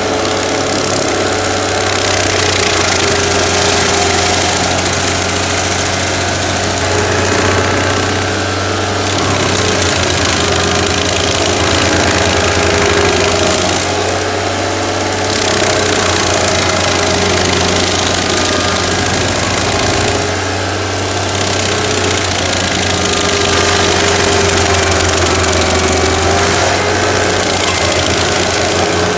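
Stump grinder's engine running under load while its toothed cutting wheel grinds into an oak stump, a steady engine drone mixed with the noise of wood being chewed to chips. The level dips briefly about every six or seven seconds.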